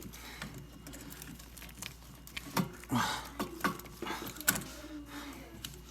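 Hand tools clinking and knocking on metal plumbing fittings, in scattered sharp clicks with a few louder knocks in the middle.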